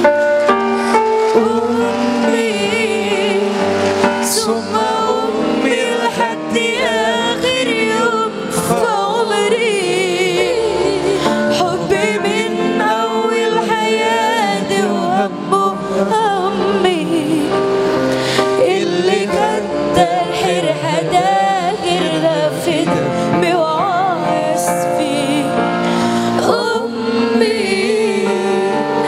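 Live band music: a woman singing a slow, heavily ornamented melody with wavering, drawn-out notes over sustained keyboard accompaniment.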